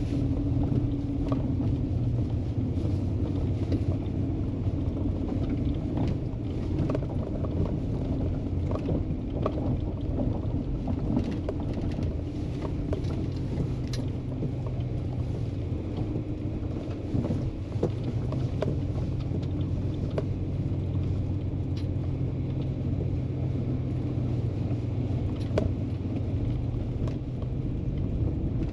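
Vehicle engine running steadily on a rough dirt trail, with scattered knocks and rattles from the bumps.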